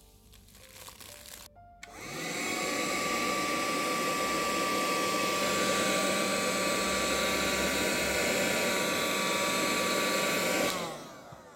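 Small homemade cordless vacuum cleaner, powered by a cordless screwdriver's battery-driven motor, switched on about two seconds in to suck up sand. It spins up quickly, runs steadily with a whine, then is switched off near the end and winds down with a falling pitch.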